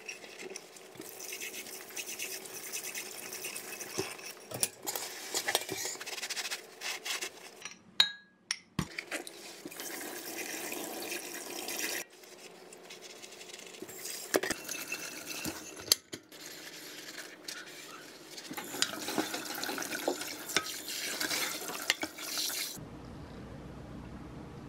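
Washing up at a stainless-steel sink: tap water running, a soapy sponge scrubbing ceramic dishes, and dishes and a frying pan knocking against the sink. The sound changes abruptly a few times, and the running water stops shortly before the end.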